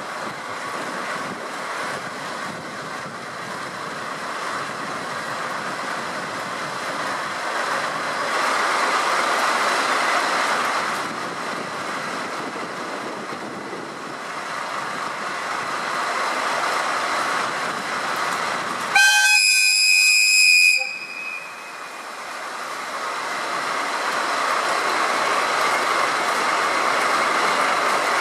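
DD51 twin-engine diesel-hydraulic locomotive running, its noise swelling and easing. About two-thirds of the way through comes one loud two-second blast of the locomotive's horn, the departure warning.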